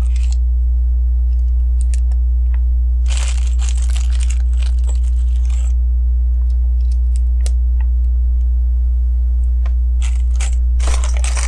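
Small plastic LEGO pieces clicking and rattling, with plastic parts bags rustling about three seconds in and again near the end, over a steady low hum.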